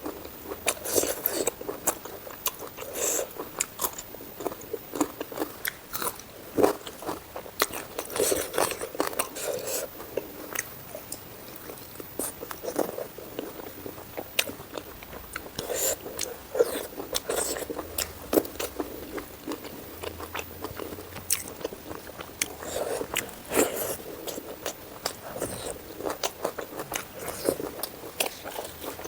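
Close-miked eating: a person chewing and biting into food, with frequent sharp crunches and crackles at an irregular pace.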